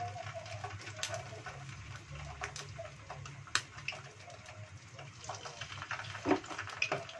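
Whole tilapia frying in hot oil in a wok: a steady sizzle with scattered crackles and pops. A second fish goes into the oil partway through, and there is a louder pop or knock a little after six seconds in.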